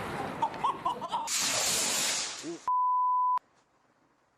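A loud, high hiss like a firework spraying sparks for about a second. It is followed about 2.7 seconds in by a single steady censor bleep lasting under a second, after which the sound drops to near silence.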